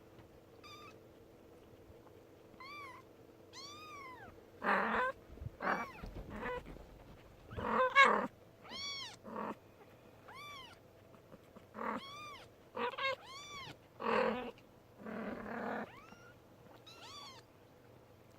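A kitten meowing over and over: a dozen or so short, high-pitched meows, each rising and falling in pitch. Between them come several short bursts of rustling noise, the loudest about eight seconds in.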